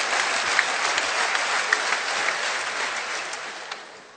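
Large arena crowd applauding, a dense patter of many hands clapping that dies away over the last second or so.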